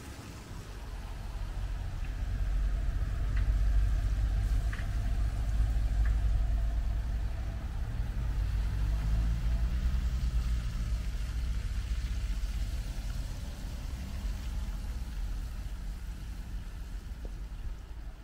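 Cars and a van moving slowly on a snow-covered road: engines and tyres on snow, with a deep rumble throughout. It swells a few seconds in as vehicles pass, and again near the middle, where an engine note rises and falls.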